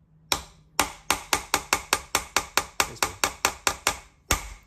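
Ball-pein hammer tapping rapidly on a steel drift set in the slots of a Holden Commodore M80 differential's carrier bearing adjuster, to drive the threaded adjuster round and undo it. Sharp metallic strikes come about four a second, starting a moment in, with a short pause near the end.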